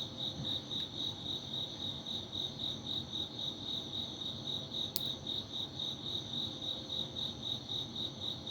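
A cricket chirping steadily, a high-pitched chirp repeating about three to four times a second.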